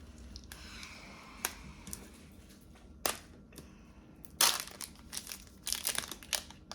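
A wrapper on a pack of basketball trading cards being torn open and handled, crinkling, with sharp crackles and a louder burst of crinkling in the second half.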